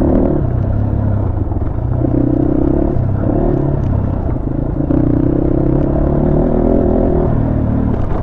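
250 cc off-road motorcycle engine running under way, its note shifting up and down with the throttle several times.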